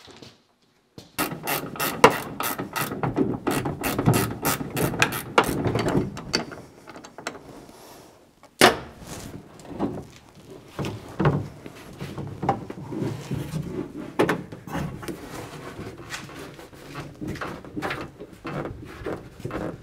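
Ratchet wrench clicking in quick runs as bolts are backed out of the truck's cab and body, with scattered metal knocks and one sharp knock about nine seconds in.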